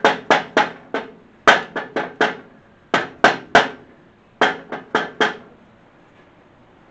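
Small mallet tapping the steering tower of a Cub Cadet garden pulling tractor to line it up with its bolt holes: quick, ringing blows in bursts of three or four, about four bursts, stopping about five and a half seconds in.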